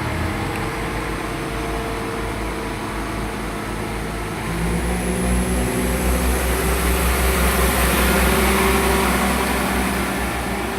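Class 172 Turbostar diesel multiple unit pulling away from the platform, its underfloor diesel engines working harder as it accelerates. A faint high whine rises in pitch from about halfway through.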